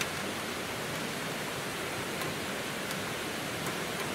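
Steady rush of a rocky stream flowing over stones, with a few faint crackles from the wood fire burning in the steel firebox stove.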